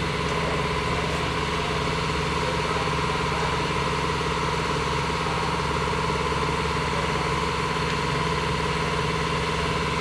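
Steady mechanical drone of a running machine, holding several fixed pitches without change.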